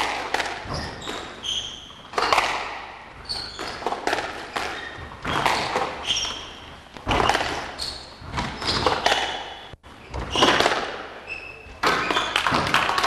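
Squash rally on a wooden court: the ball cracking off rackets and walls about once a second, echoing in a large hall, with shoes squeaking on the floor between shots.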